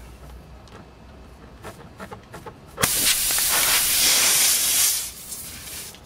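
Air hissing out of a punctured car tire through its reamed-out nail hole. The hiss starts suddenly about three seconds in, runs loud for about two seconds, then drops to a faint hiss.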